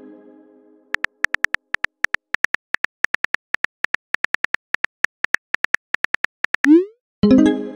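Phone keyboard typing clicks, a quick irregular run of taps as a text message is typed out, then a short rising swoosh and a bright synth chord as the message is sent near the end. A chord from the previous message fades out in the first second.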